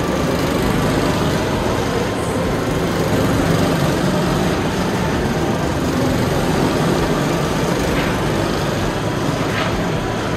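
Rental go-kart engines running steadily as karts lap an indoor track in a large covered hall.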